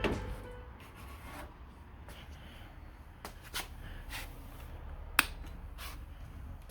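A few scattered sharp clicks and light taps, the loudest about five seconds in, over a low steady hum: the washer being handled and its controls tried while testing the repair.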